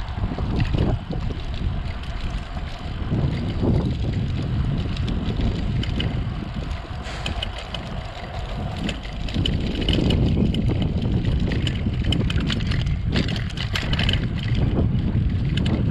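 Wind buffeting the microphone of a chest-mounted GoPro Hero 7 Black on a moving bicycle, a steady rumbling rush. A few brief clicks and rattles come through about halfway through and again near the end.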